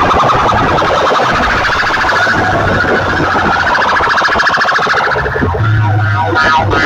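Loud siren-like electronic effect blasted through banks of horn loudspeakers driven by amplifier racks: a fast-pulsing, wailing tone that slowly rises and falls in pitch. About five seconds in the sound changes and a deep steady hum comes in under it.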